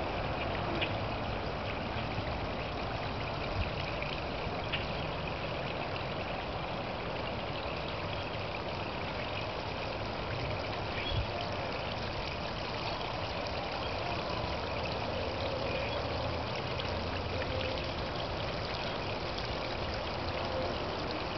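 Water trickling steadily over rocks in a small garden waterfall: a continuous even splashing with a few faint clicks.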